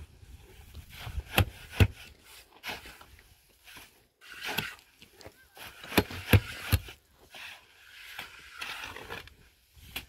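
Irregular sharp knocks, about half a dozen, the loudest a little under 2 s in and around 6 s in, with rough scraping or rustling between them.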